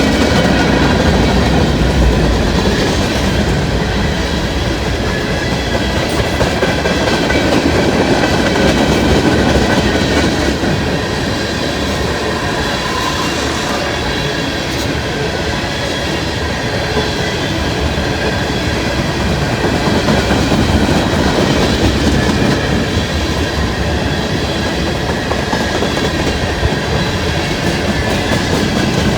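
Freight cars of a long mixed manifest train rolling past, a steady rumble of wheels clattering over the rail joints with a thin, steady high-pitched wheel squeal running through it.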